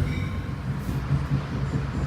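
Commuter train running, a steady low rumble, with a faint wheel squeal dying away just after the start.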